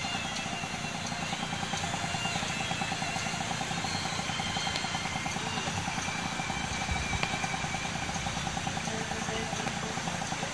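Engine of a small advertising box truck running steadily, with a low rumble and a constant pulsing hum, mixed with street traffic.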